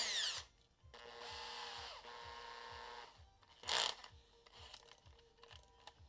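Cordless drill chucking up a starting tap: the drill motor runs steadily for about two seconds, stepping once partway, with a short rattling burst at the start and another near four seconds as the keyless chuck is tightened.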